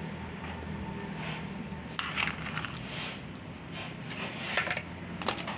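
Cockle shells clattering in a metal wok as they are moved about, with sharp clatters about two seconds in and a louder cluster near the end. A low steady hum runs underneath.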